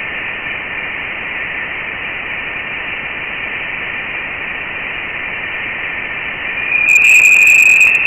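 Voyager 1 plasma wave instrument recording played as sound: a steady hiss with a faint whistling tone in it. About seven seconds in, the tone turns louder and slightly higher. The tones are oscillations of the interstellar plasma picked up by the probe's antenna, their pitch rising with the plasma's density.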